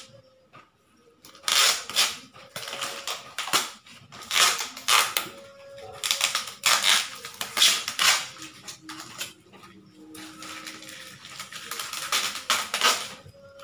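Packing tape and plastic wrapping being slit with a cutter and torn off a taped parcel: a run of rasping tearing and crinkling strokes that stop and start.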